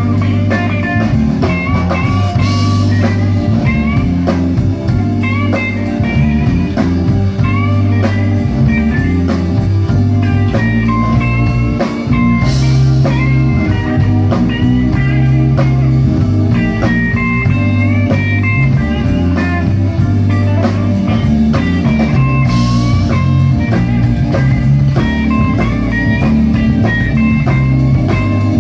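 Electric blues band playing live: lead electric guitar lines over bass and drums, with a cymbal crash about every ten seconds.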